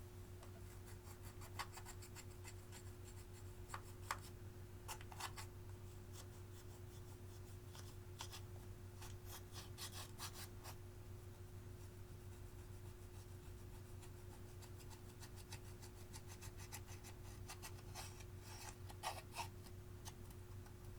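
Clear slime being worked and mixed with eyeshadow: faint, scattered sticky clicks and crackles that come in small clusters, over a steady low hum.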